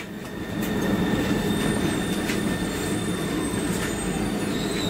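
Driverless metro train running through a tunnel, heard from the front of the train: a steady rumble of wheels on rail with a thin, high steady whine and a few light clicks.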